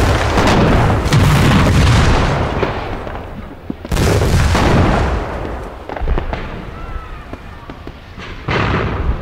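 Heavy booms of a gun salute and fireworks bursting at night, one volley at the start, another about four seconds in and a third near the end, each trailing off into crackle.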